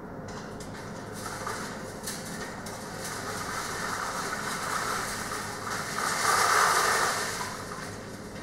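Metal roll cages rattling and clanking as they are wheeled across the service yard, building to a loud rattle about six seconds in and then fading.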